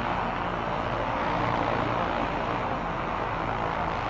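A marching brass line making a steady rushing, airy noise instead of notes, so that the massed horns sound like a jet aircraft, with a faint low hum underneath.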